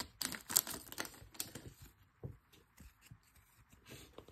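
Thin foil pack wrapper rustling and trading cards being slid out and shuffled by hand: a run of soft crinkles and clicks in the first second or so, thinning to a few faint ticks of card edges.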